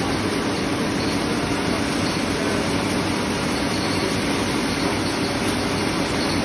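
Heavy-duty wheat cleaning and grinding machine running steadily: a constant loud mechanical whir with a steady low hum beneath it.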